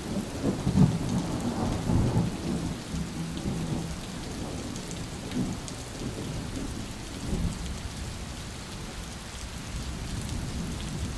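Thunderstorm: steady rain with rolling thunder. The thunder is heaviest in the first couple of seconds, with another rumble about seven seconds in.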